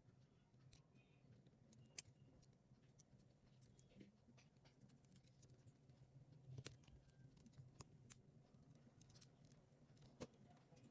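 Near silence with a faint low hum and scattered light clicks and taps, typical of small phone parts and tools being handled on a work surface.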